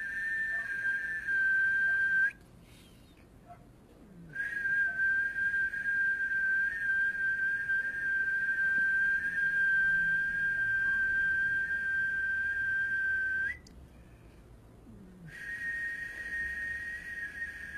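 A person whistling long, steady high notes. The longest is held for about nine seconds, and there are two pauses of about two seconds between the notes.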